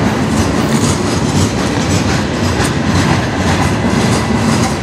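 Freight cars of a passing CN manifest train, lumber-loaded centerbeam flatcars and then gondolas, rolling by at close range. The steel wheels make a steady loud rumble with a quick run of sharp clicks and clacks on the rails.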